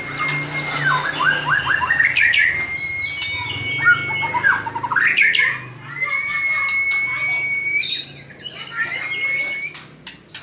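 White-rumped shama (murai batu) singing: about four long, steady whistled notes, each broken off by quick runs of short chattering notes, with sharp clicks in between.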